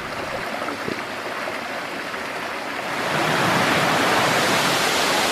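Rushing water of a cascade at Dark Hollow Falls, tumbling over rocks, a steady hiss that gets louder about three seconds in.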